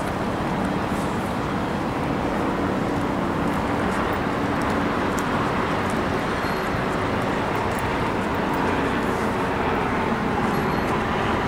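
Steady outdoor city noise of traffic, with a faint low hum that fades in the first couple of seconds.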